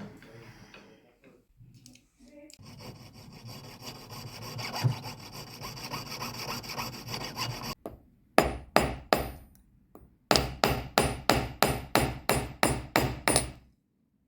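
Hammer striking gold on a steel anvil as a ring is forged: three blows, a short pause, then a run of about a dozen quicker, even blows with a high metallic ring. Before the hammering, several seconds of steady rasping.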